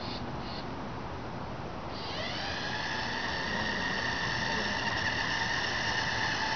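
A four-wheeled robot rover's electric drive motors whining as it drives. The whine starts about two seconds in, rising briefly in pitch as the motors spin up, then holds steady and grows louder as the rover comes closer.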